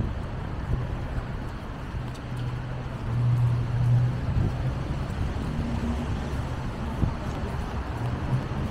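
City street traffic noise: a steady low engine hum from passing vehicles, swelling for a second or so about three seconds in.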